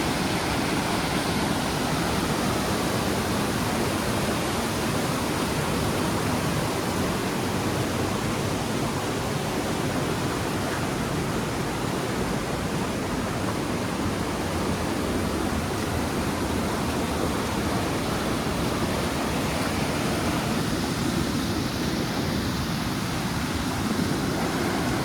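Steady, even rush of heavy water, from downpour and floodwater running across a street.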